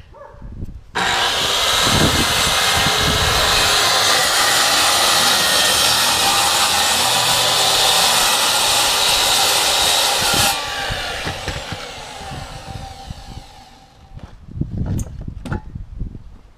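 Power saw cutting through wood for about nine seconds, starting abruptly and then winding down; a few sharp knocks near the end.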